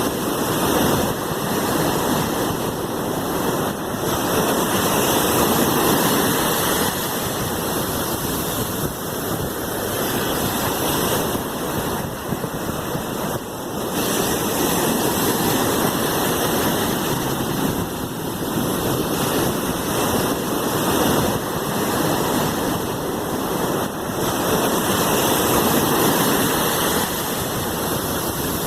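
Sea waves: a steady rush of surf that swells and eases every few seconds as the waves wash in.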